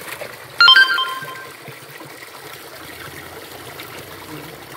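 Water pouring from a pipe spout, splashing over a person's soapy head and hands and into a plastic basin below. About half a second in, a brief high ringing sound cuts in and fades within a second; it is the loudest thing here.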